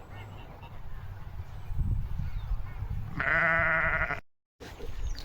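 A single wavering, bleat-like farm-animal call lasting about a second, near the end, over low wind rumble on the microphone. The sound cuts out abruptly right after it.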